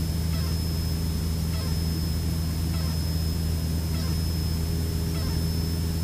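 Light aircraft's piston engine and propeller droning steadily, heard inside the cockpit, with a thin steady high whine and a faint falling chirp that repeats a little more than once a second.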